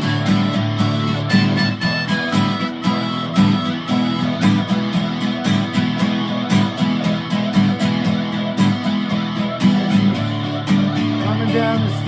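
Guitar music, strummed in a steady rhythm with sustained notes, no voice.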